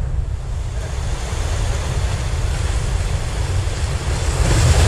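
Sea surf washing against the breakwater rocks, with wind buffeting the microphone as a steady low rumble; the wash of the waves swells louder near the end.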